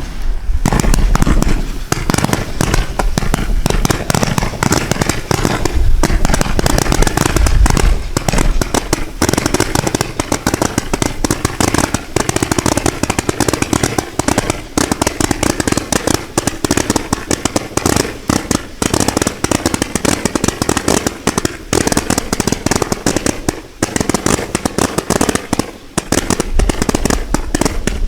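A 470-shot consumer fireworks finale kit firing a dense, rapid barrage of shots and bursts, many per second without a break.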